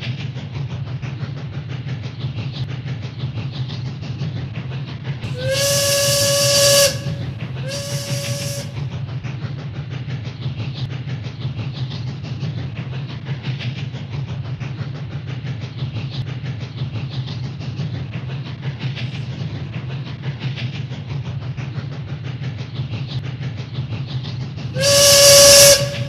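Steam train running with a steady low rumble, its steam whistle blowing three times: a blast about five seconds in, a shorter second blast right after it, and another blast near the end.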